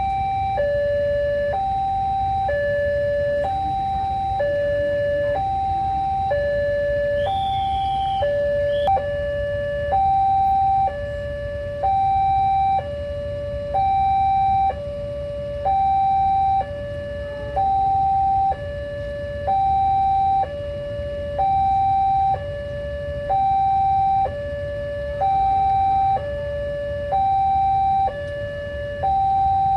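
Railway level-crossing warning siren sounding a steady two-tone alarm, switching between a high and a low tone about once a second, over a low rumble.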